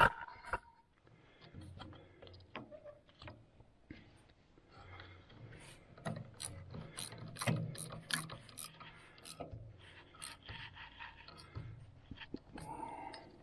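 Hand ratchet wrench clicking in several short runs, thickest midway through, with some metal scraping: a mounting bolt is being tightened on a snowplow's electric hydraulic pump motor.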